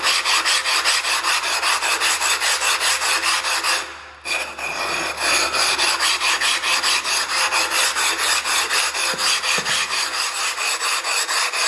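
Worn, dished bench stone being scrubbed back and forth on a grooved silicon carbide Norton flattening stone, a gritty scrape on every stroke at about three to four strokes a second, with a brief pause about four seconds in. The stone is being lapped to flatten out the hollow worn into its middle.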